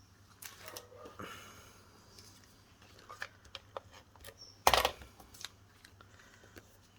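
Scissors snipping ribbon amid light rustling and small clicks of craft materials being handled on a desk, with one sharp knock a little past halfway, an object set down on the table.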